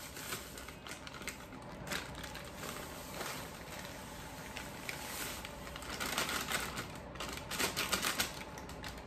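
Plastic bag of dry cornbread mix crinkling and rustling as it is squeezed and emptied into a bowl, a dense run of light clicks that gets busier near the end.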